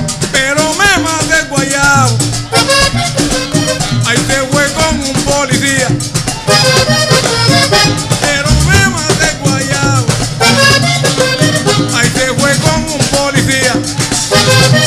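Live vallenato music: a diatonic button accordion plays the melody over hand drums and a steady scraped percussion rhythm.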